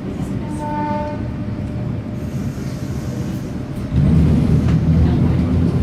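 Train at a station: a steady rumble, a brief horn-like tone about a second in, then at about four seconds a louder, steady low hum sets in.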